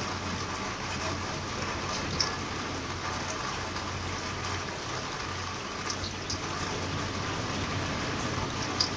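Steady rain falling on a wet wooden deck and rug, with occasional sharper drips, the loudest about two seconds in and just before the end.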